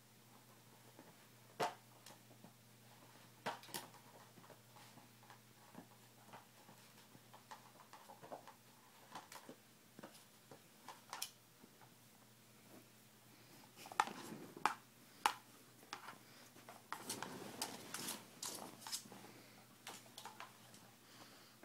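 Hard plastic ring-shaped cat toy clicking and knocking as a Westie puppy noses, pushes and tips it over. Faint scattered clicks, busiest about two thirds of the way through.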